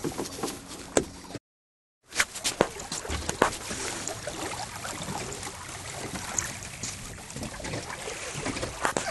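Water splashing and lapping against the side of a small boat as a hand dips into it, with scattered knocks. The sound cuts out completely for under a second about one and a half seconds in.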